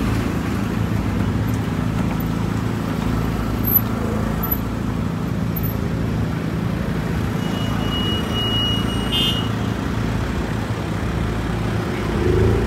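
City street traffic: a steady low rumble of vehicle engines running and passing. A high steady tone sounds for about two seconds past the middle.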